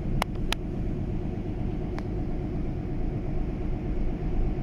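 Steady low rumble of a car ferry's engines and machinery running at the quay before departure, with a few short clicks.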